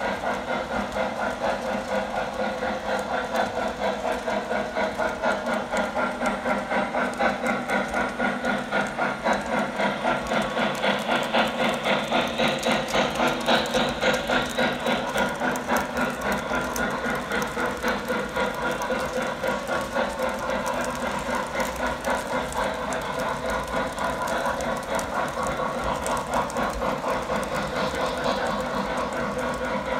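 O scale model trains running on the layout track: the rumble of wheels and motors, with a fast steady pulsing clatter.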